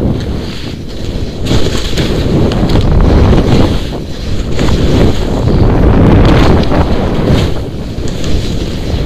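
Wind rushing over a helmet-mounted action camera's microphone as the skier descends through powder, a loud low rumble that swells and eases every couple of seconds.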